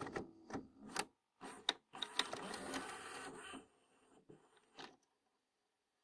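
Video cassette recorder's tape transport as a rewind ends: the steady whir breaks off into a run of sharp mechanical clicks and clunks, whirs again for about a second and a half, gives a few softer clicks and stops about five seconds in.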